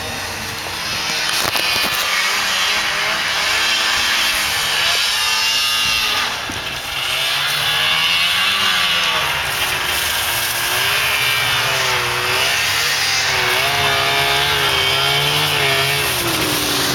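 Snowmobile engines revving up and down as the sleds circle, the pitch rising and falling again and again. One sled comes up close near the end.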